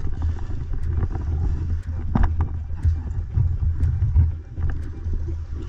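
Wind buffeting the microphone as a steady low rumble, with scattered sharp clicks at irregular intervals.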